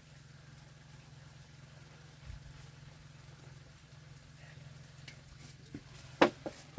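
A low steady hum, then a few sharp clinks of a utensil against a cooking pot near the end, the loudest about six seconds in.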